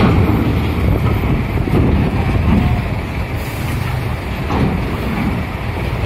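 Diesel engines of loaded trucks running as they drive off a ferry down its ramp, a steady low rumble.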